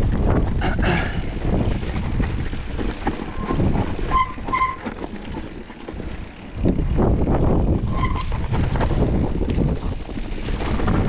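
Wind buffeting the microphone and mountain-bike tyres rumbling over a rough trail during a descent, with a few short squeaks around four seconds in and again near eight seconds.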